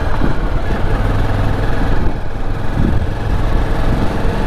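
Motorcycle engine running steadily while riding, heard from the rider's seat over a constant low rumble of road and wind noise.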